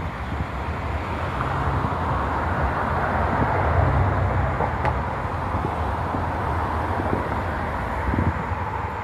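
Steady outdoor background noise: a low rumble with a hiss that swells a little about halfway through.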